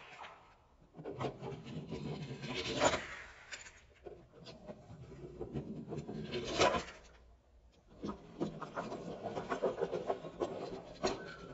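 Small toy train engines rolled by hand along a plastic playset track, their wheels rumbling and rubbing on the plastic. It comes in three runs separated by short pauses, each ending in a louder clack.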